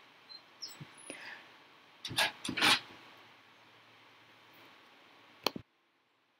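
Pencil drawing on paper: faint scratching and rubbing, with a few louder short scrapes about two to three seconds in, and a single sharp click near the end.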